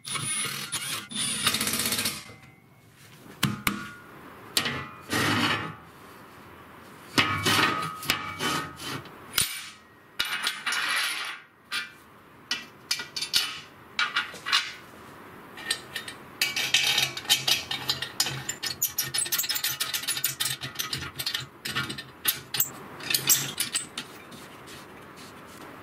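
Steel parts clinking, knocking and scraping on a steel table top as a square steel tube fence is set in place and bolted, in irregular clusters with short pauses and a quicker run of clicks near the end.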